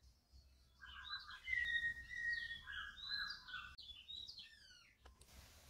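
A songbird chirping and whistling in the background: a run of varied chirps, a long steady whistle and several quick falling notes that stop about five seconds in. A short burst of noise follows near the end.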